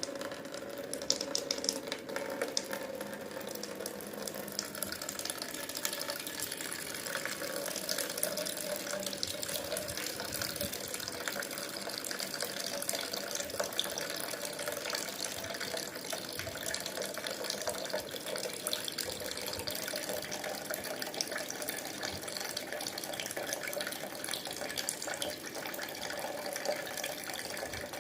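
Steady stream of water pouring from a neti pot through the nose and splashing into a pot below, during jala neti nasal rinsing.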